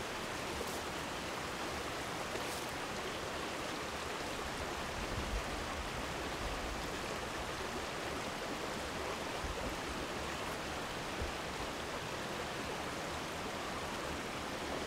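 Small rocky mountain stream running over stones and riffles: a steady, even rush of water.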